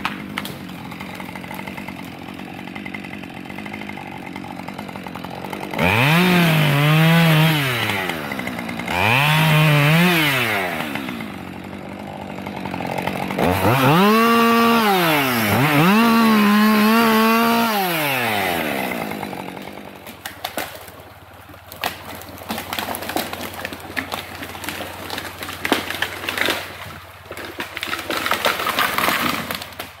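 Husqvarna 550 XP two-stroke chainsaw revving up and cutting four times, each burst about two seconds long and dropping back between them. After that comes a run of short, sharp cracks and knocks.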